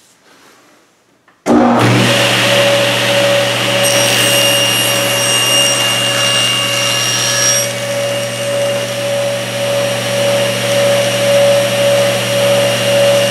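Table saw motor starts suddenly about one and a half seconds in and runs with a steady hum and whine. From about four to seven and a half seconds in, a shriller, louder edge is added as the blade crosscuts the board; then the blade spins free.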